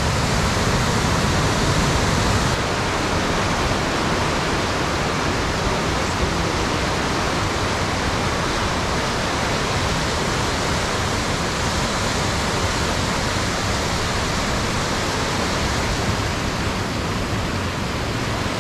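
Whitewater rapids rushing over and between granite boulders: a dense, steady roar of churning river water.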